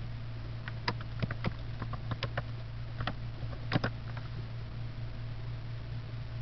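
Computer keyboard keystrokes: an irregular run of short clicks over the first four seconds, with a quick double click near the four-second mark. A steady low electrical hum runs underneath.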